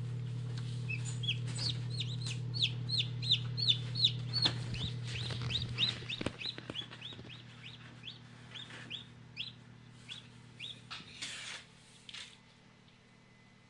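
Hatching Silver Laced Wyandotte chicks peeping: quick high peeps, each falling in pitch, about three or four a second, growing sparser and fainter after about six seconds. Under them a steady low hum from the incubator stops about six seconds in, and there is a short rustle near the end.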